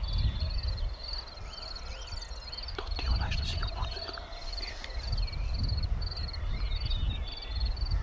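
Field ambience: an insect chirping in a steady high-pitched pulse, about two chirps a second, with scattered bird calls over a low, uneven wind rumble.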